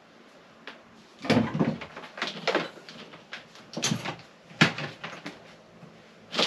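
A string of irregular knocks and clatters as tools and gear are picked up and set down on a workbench, about seven in all with the loudest near the end.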